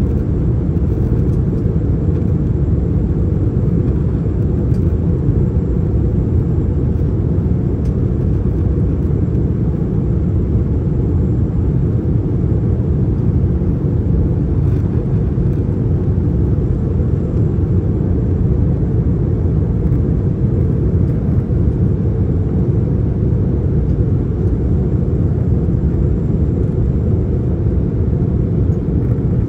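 Steady deep roar of engine and airflow noise inside the cabin of an Airbus A321 airliner in flight, unchanging in level.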